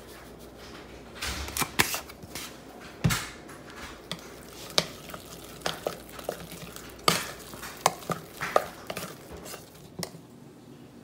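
A spoon stirring and scraping mashed potatoes in a stainless steel pot, with irregular clinks and knocks against the side of the pot.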